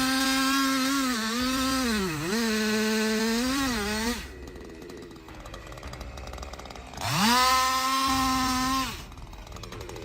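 Chainsaw engine running at full throttle, its pitch dipping briefly twice as it bogs under load in the cut. It then drops away to a quieter stretch before revving up again for about two seconds and falling off.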